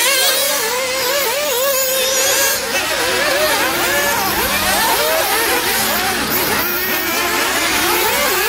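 Several nitro RC off-road race cars running together, their small two-stroke glow engines revving up and down and overlapping in a constant, shifting whine.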